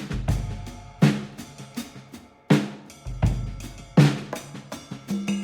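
Drum-led music: hard drum hits every second or so, with cymbal and snare, over a deep sustained bass.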